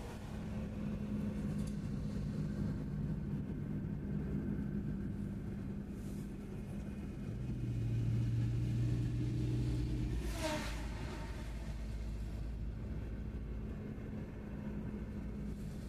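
Car driving along a road, heard from inside the cabin: a steady engine and tyre hum. Louder engine drone partway through, then an oncoming truck rushes past about ten seconds in.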